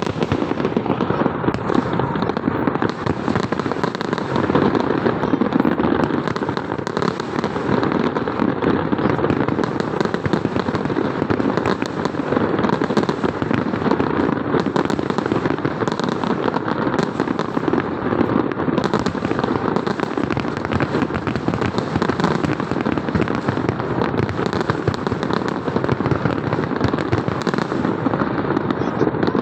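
Fireworks display going off in a continuous barrage: a dense, unbroken run of overlapping bangs and crackles.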